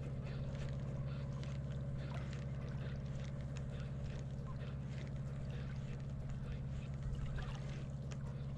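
Steady low engine drone with a constant pitch, with faint scattered light clicks over it.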